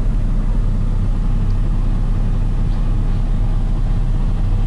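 Motor vehicle engine running with a steady low rumble, heard from inside the vehicle.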